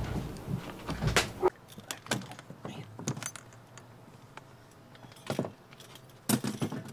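A camper's metal access hatch door being unlatched and lifted out of its frame: a few scattered light clicks and knocks, the loudest two near the end. The first second and a half holds louder rustling and knocking of handling work.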